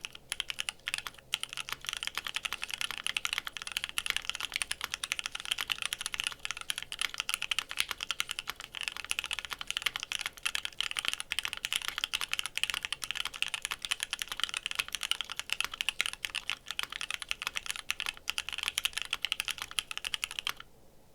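Continuous fast typing on a Savage65 custom mechanical keyboard with lubed, filmed Alpaca linear switches on an FR4 plate and PBT keycaps. The typing stops abruptly near the end.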